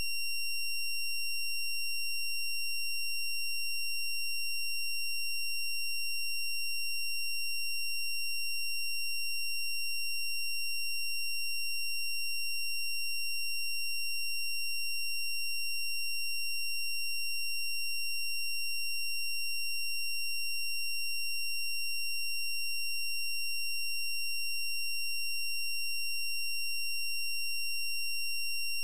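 A steady, high-pitched electronic tone that never changes in pitch or loudness, with fainter overtones above it.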